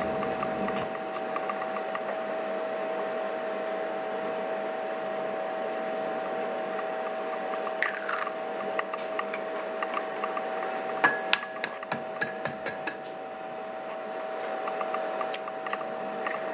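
An egg tapped against a bowl's rim to crack it: a quick run of about seven sharp clicks a little past the middle, with scattered small clicks of eggshell being handled. A steady hum runs underneath.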